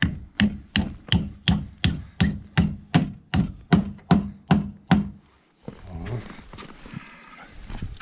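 A rapid, even series of hard knocks, about four or five a second, each with a dull thud, stopping about five seconds in; quieter rustling follows.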